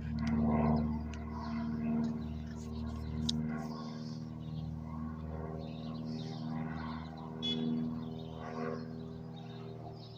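Airplane passing high overhead, its engines a steady hum that slowly fades toward the end, with a few bird chirps.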